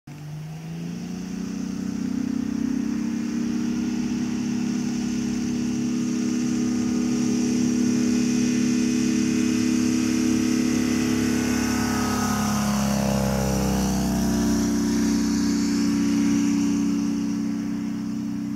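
Engine and propeller of a Harvard-replica ultralight aircraft at full power on its takeoff run. It rises in pitch and loudness in the first two seconds as it opens up, and drops in pitch as the plane passes close by about twelve to fourteen seconds in. It fades as the plane climbs away near the end.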